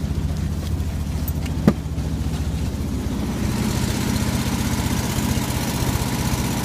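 Boat motor running steadily at low speed, with a single sharp knock a little over a second and a half in. From about halfway a higher hiss joins over the motor and it gets slightly louder.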